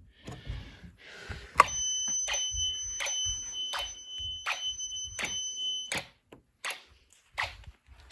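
A home-built Snap Circuits fire alarm panel. A piezo buzzer gives a steady high-pitched tone for about four seconds: it starts with a click shortly after a second in and cuts off suddenly. A relay ticks steadily, about once every 0.7 seconds, all the while.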